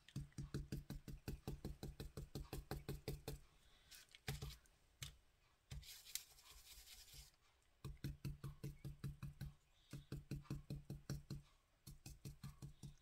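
A flat paintbrush pouncing paint onto the roof edge of a small wooden birdhouse: faint, quick tapping, about six taps a second in short runs with a sparser pause in the middle.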